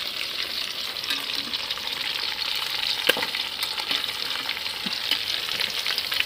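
Whole marinated quails deep-frying in hot oil: a steady crackling sizzle. Through it come spoon clinks and scrapes as the birds are turned over, with one sharper click about three seconds in.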